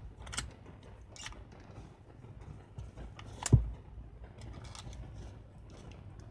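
Gloved hands loading a 35 mm film cassette into the open back of a Pentax Espio 140M compact camera: a few small plastic clicks and taps, then one louder knock about three and a half seconds in as the cassette drops into its chamber.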